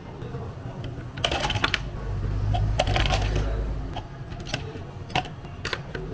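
Light clicking and clattering of cafe utensils and containers being handled during drink preparation, in two quick clusters, with a low rumble for about two seconds in the middle.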